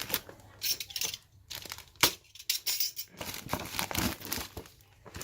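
Packaging of a boxed keyboard being handled: irregular rustling with clicks and knocks, and one sharp clack about two seconds in.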